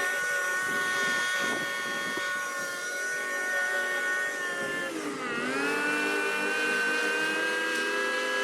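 Small petrol engine of lawn-care gear running at high speed. Its pitch dips briefly about five seconds in, then climbs back up.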